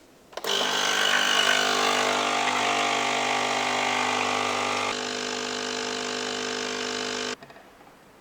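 A small electric motor appliance running steadily for about seven seconds, a little quieter partway through, then switched off abruptly.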